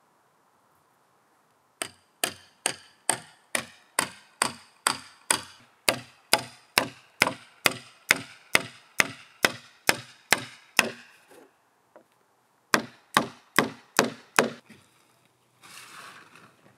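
Hammer blows on wood in a steady run of about twenty strikes, about two a second, then a short pause and four more strikes. A brief scraping rustle follows near the end.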